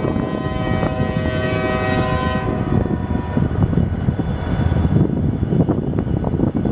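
Amtrak P40DC diesel locomotive's air horn sounding one long blast of several tones together. It is strongest for the first two and a half seconds, then fades out by about five seconds in. A loud, uneven low rumble runs underneath.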